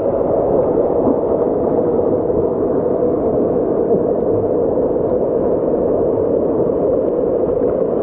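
Waterfall water rushing and splashing, a steady, even rush.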